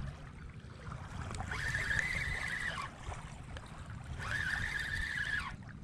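Spinning reel being cranked to wind in line: a whirring whine that comes in two spells, each a little over a second long.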